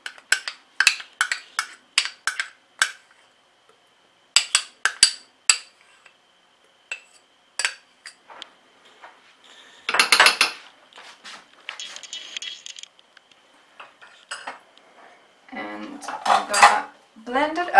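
A metal spoon clinking and tapping again and again against a jar and the rim of a steel blender bowl as tahini is scraped out, in quick clusters of sharp clicks. A louder scraping clatter comes about ten seconds in, and a busier jumble of knocks near the end.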